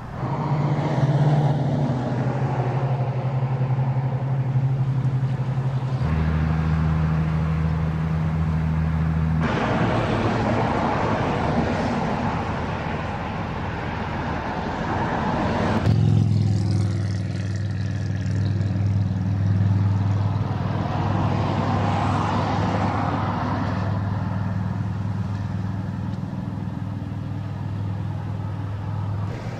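Road traffic passing close by: pickup trucks towing horse trailers, their engines running with a low hum over tyre noise on the asphalt. The sound changes abruptly three times, as separate stretches of traffic follow one another.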